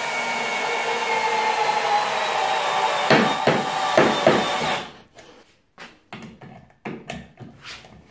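Parkside PBSA 12 D3 12 V cordless drill driving a large screw into a wooden beam. The motor runs steadily, its pitch sinking slowly under the rising load, with a few sharp clicks before it stops about five seconds in. Scattered short knocks and rustles follow.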